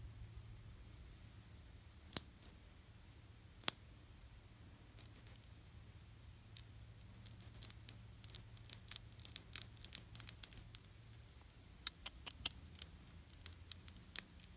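Scattered small, sharp clicks and crackles: two single ones a second and a half apart, then a dense irregular run of them in the middle and a few more near the end, over a faint low hum.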